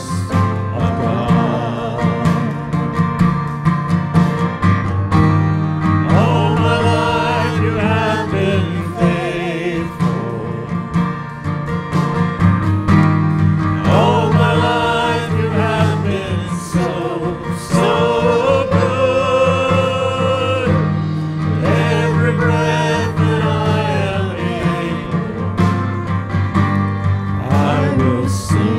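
Live church worship band playing a slow song: acoustic guitar, piano and drums under steady sustained low notes, with voices singing long phrases over them.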